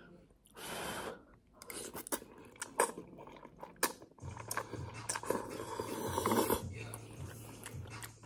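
Slurping and chewing udon noodles, with a few sharp clicks from the bowl and fork, and a low hum from about four seconds in.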